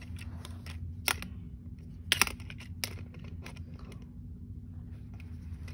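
Small plastic toy cars and figures handled on carpet: a few sharp plastic clicks, one about a second in, a quick pair just after two seconds and another soon after, over a low steady hum.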